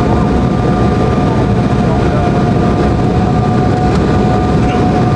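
Steady rumble of an Embraer 190's turbofan engines and rushing air, heard inside the cabin on final approach with the flaps extended, with a steady high whine running through it.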